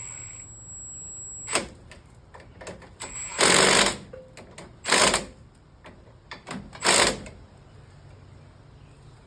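Impact wrench hammering in three short bursts about a second and a half apart, the first the longest, tightening the nut on a new sway bar link, with a few light metal clicks between bursts.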